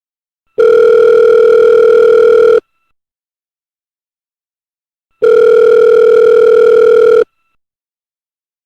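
Telephone line ringing tone: two steady electronic tones, each lasting about two seconds, with about two and a half seconds of silence between them.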